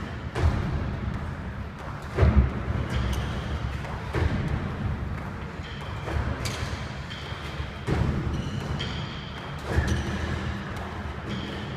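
Thuds of bodies and feet landing on a wooden sports-hall floor during burpees and jumps, about one every two seconds, echoing in the large hall.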